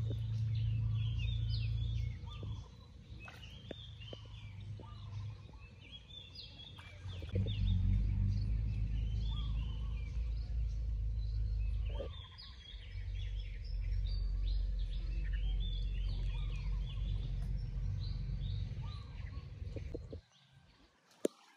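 Forest birds chirping and calling over and over, over a low rumble that comes and goes in long stretches and drops away near the end.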